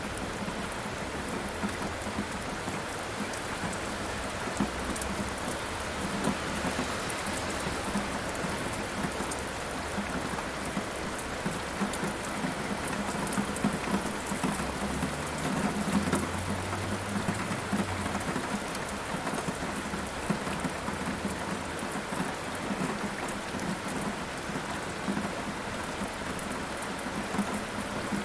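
Steady heavy rain pattering, with a low roll of thunder rumbling up about halfway through and fading a few seconds later.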